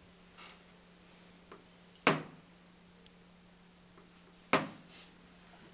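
Two sharp knocks about two and a half seconds apart, with a few fainter taps, as a gilder's knife and leather gilder's cushion are handled on a wooden table.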